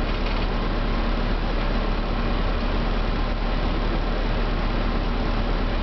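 A large engine running steadily, with a constant low rumble and a faint steady hum, mixed with wind rumbling on the microphone.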